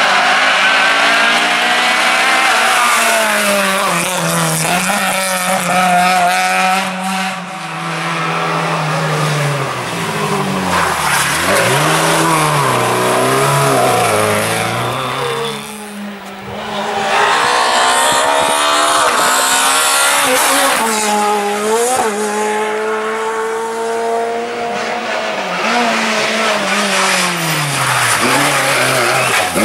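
Rally cars on a tarmac special stage, one after another: engines revving hard through the corners, the pitch climbing and dropping with each gear change and lift-off, with a short drop in loudness about halfway as one car gives way to the next.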